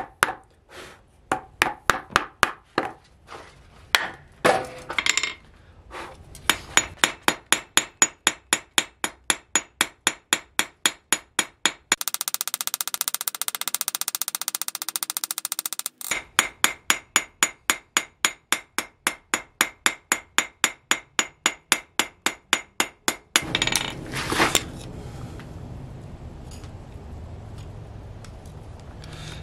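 Hand hammer striking hot steel on an anvil while forging a small leaf: a few irregular knocks at first, then steady blows at about three a second, with a stretch of very rapid strikes in the middle. The hammering stops near the end, leaving a low steady noise.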